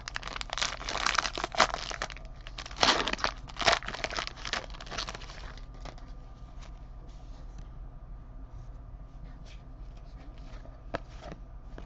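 A trading card pack's wrapper being torn open and crinkled for about five seconds, followed by a few light clicks of cards being handled.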